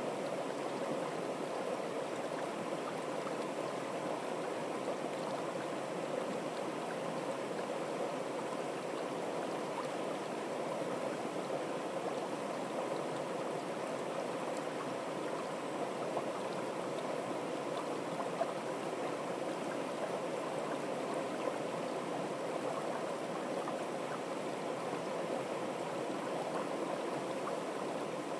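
Shallow, fast-flowing stream rushing steadily over a rippled bed.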